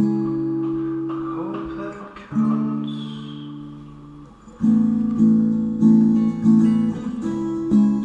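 Background music on acoustic guitar: chords struck and left to ring three times in the first half, then quicker strumming about every half second from a little past halfway.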